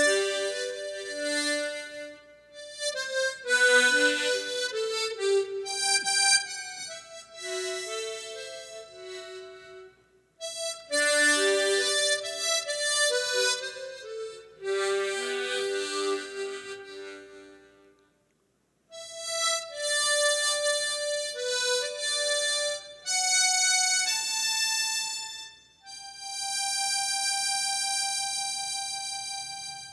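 Harmonica playing a slow melody in phrases, often sounding several notes together as chords, with short breaths between phrases. It ends on a long held note that fades out.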